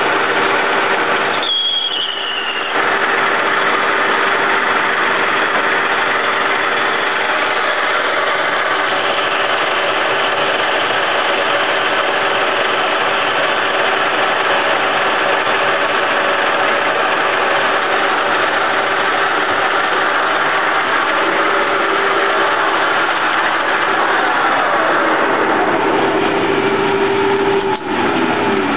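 1K62 lathe running at about 630 RPM while a tool faces a 180 mm steel workpiece: a steady machine hum with one constant tone under the hiss of cutting. About two seconds in the noise dips briefly with a short high squeal. Right at the end the hum's pitch starts to fall as the spindle slows.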